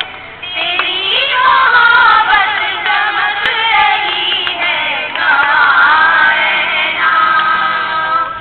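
A group of young women singing together, led by one voice through a handheld microphone, after a brief pause at the very start.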